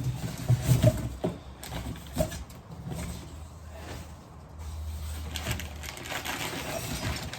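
Scattered knocks, clicks and rustles of coilover parts and their packaging being handled, with a low steady hum for a few seconds in the middle.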